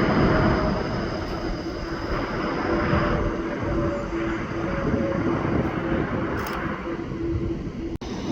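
Jet airliner engines running, a steady roar with a few held tones that eases slightly after the first second. The sound cuts out for an instant near the end.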